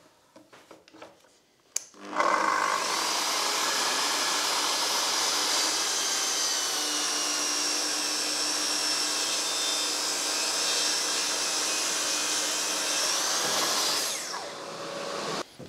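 Festool plunge saw switched on about two seconds in, running steadily with its dust extractor while cutting a board along its guide rail at a bevel. Near the end it switches off and winds down.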